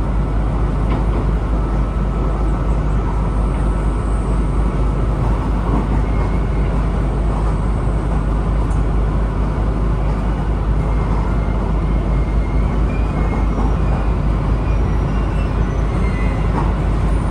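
Interior running noise of a diesel railcar on the Kyūdai Main Line: a loud, steady low rumble of engine and wheels on rail while the train travels along.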